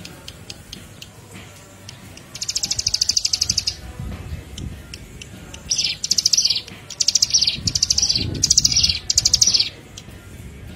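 Small songbird giving rapid, high-pitched pulsed trills: one long trill a couple of seconds in, then a run of about five short trills in quick succession through the middle and latter part.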